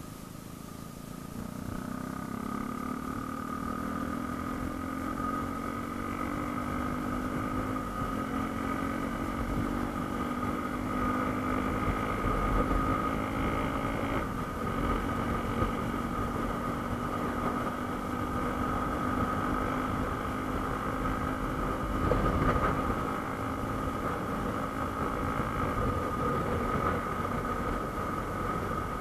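Yamaha M-Slaz motorcycle's single-cylinder engine running under way. It picks up revs about a second in, then holds a fairly steady note with small dips in pitch. A single sharp thump comes about three quarters of the way through.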